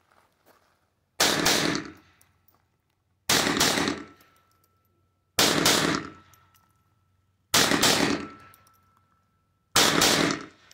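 A 22LR Ruger LCP II pocket pistol firing five single shots at a steady pace, about two seconds apart, each a sharp crack with a short echoing tail.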